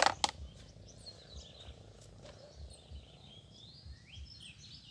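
A few sharp clicks right at the start, then faint, high, gliding chirps from small animals over a low outdoor rumble.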